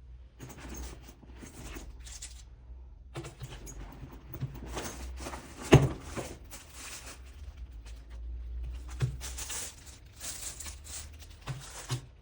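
Packaging being handled and unwrapped, rustling in repeated spells, with a sharp knock about six seconds in and a few lighter taps.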